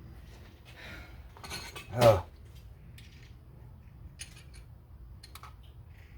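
A few light metallic clicks and clinks, scattered and irregular: hand tools and small metal parts being handled.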